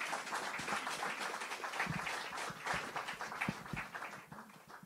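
A small audience applauding, the clapping dying away near the end, with a few low thumps mixed in.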